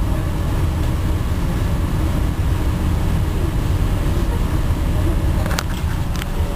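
Steady low rumble inside a SkyTrain car at a station platform, with a few sharp clicks near the end.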